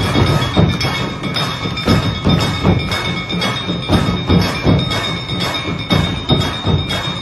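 Music with a steady percussive beat, about two beats a second, over sustained high notes.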